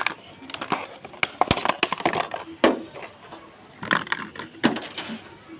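Irregular clicks, taps and rustles of a plastic glue gun and its packaging being handled.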